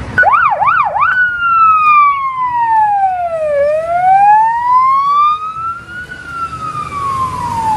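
Police siren: three quick yelping sweeps, then a slow wail that falls, rises and falls again.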